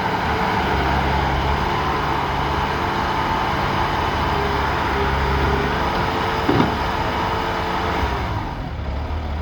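Bobcat skid steer's engine running steadily under load. It drops off about eight seconds in.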